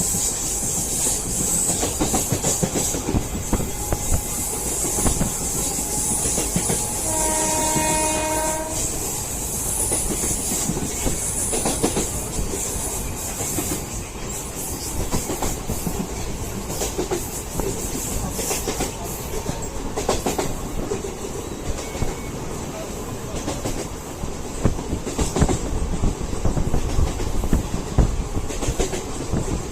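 Indian Railways train running along the track with a steady rumble and wheels clicking over rail joints; a train horn sounds once, about seven seconds in, for under two seconds.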